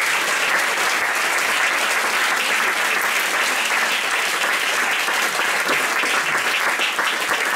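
Audience applauding steadily: many people clapping.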